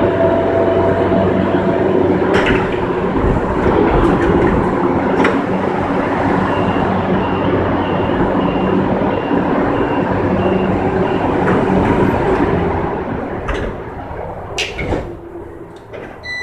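CAF FE-07 electric metro train heard from its cab while running on steel rails: loud, steady rolling noise with a low electric hum and occasional sharp clicks. A faint series of short high beeps sounds in the middle, and the noise falls away over the last few seconds.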